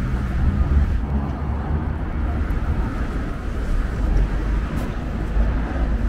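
City street ambience: a steady low rumble of road traffic under a general haze of urban noise.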